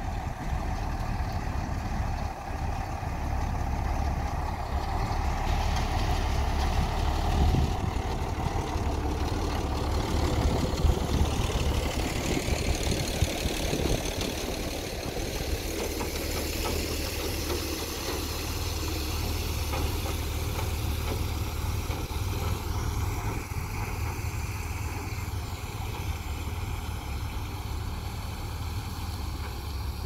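Diesel engine of a heavy road-construction machine running steadily, with a strong low rumble.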